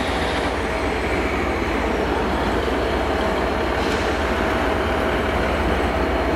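Class 197 diesel multiple unit approaching the platform at low speed, its diesel engines running with a steady low rumble and a faint steady whine over it.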